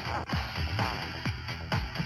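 Electronic dance-style ringtone from an LG LB3300 mobile phone, with a steady kick-drum beat under a busy synth melody.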